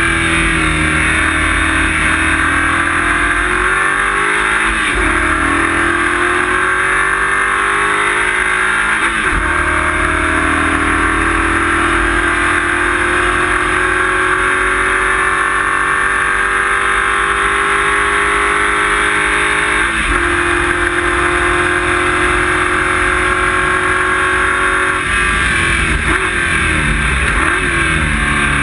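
Race car engine heard from inside the cockpit under hard driving, its pitch climbing steadily and then breaking several times with gear changes, over constant road and wind noise.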